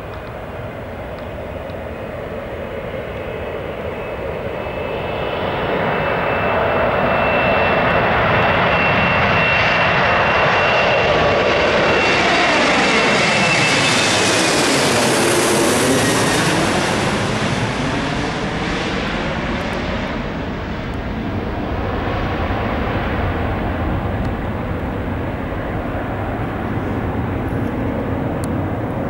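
Embraer ERJ-195 airliner's two turbofan jet engines at takeoff power. The roar swells as the jet passes close, with a high whine that drops a little in pitch as it goes by, then eases off into a steady distant rumble.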